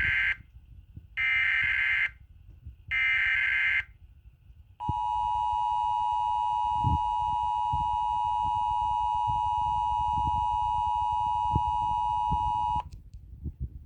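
Emergency Alert System signal on weather radio. The end of one SAME digital header burst is followed by two more bursts of about a second each. About five seconds in comes the steady two-tone attention signal, held about eight seconds and then cut off abruptly. It signals that an emergency warning message follows.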